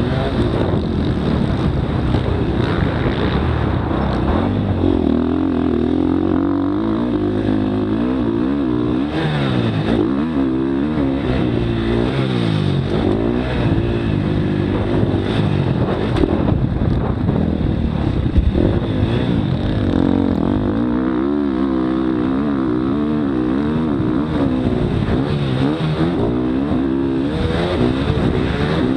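Motocross dirt bike engine, heard on board the bike, revving up and down over and over as the rider accelerates, shifts and backs off around the track.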